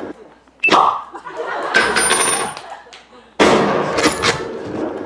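Pre-recorded dance-performance soundtrack played over the PA, cut into abrupt edited fragments: a burst about half a second in that carries on for about two seconds, a short drop, then a dense burst from about three and a half seconds in that stops suddenly.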